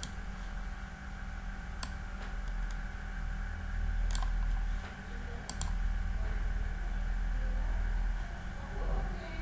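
A few scattered sharp computer mouse clicks, two in quick succession about five and a half seconds in, over a steady low electrical hum.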